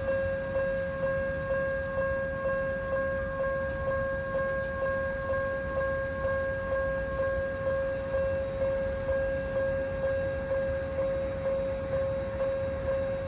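Japanese railway level-crossing warning bell ringing steadily, one clear tone struck a little under twice a second, each strike fading before the next. The bell is of an unusual-sounding type.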